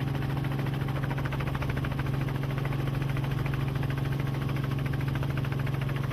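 Steady engine drone: a constant low hum with a fast, even pulsing above it, unchanging throughout.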